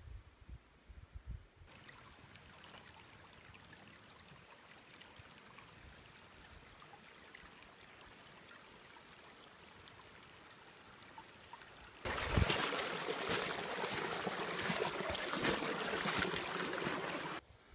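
Shallow rocky creek trickling over stones, cutting in suddenly and loudly about twelve seconds in; before that only a faint steady hiss.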